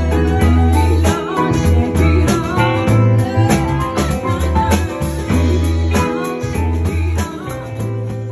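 A band playing live: a steady bass line under regular drum and cymbal hits, with a wavering lead melody on top. The music gradually fades toward the end.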